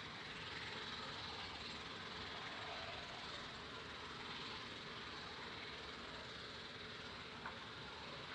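Distant, steady rushing jet noise from a Bombardier Global 5000's twin Rolls-Royce BR710 turbofans at takeoff power as the jet climbs away. There is a small click about seven and a half seconds in.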